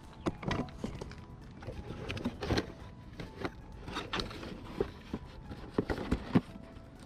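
Irregular clicks, clanks and knocks of hand tools and brake parts being handled, a few sharp knocks standing out near the end.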